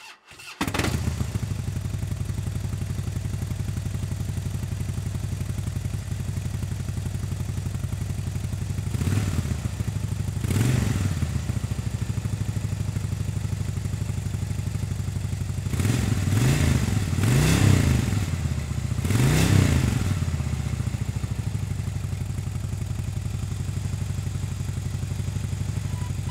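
2007 Harley-Davidson Street Bob's Twin Cam 96 V-twin on its stock European-spec mufflers, started and settling into a steady idle. It is revved briefly five times: twice near the middle and three times in close succession a little later, each time falling back to idle.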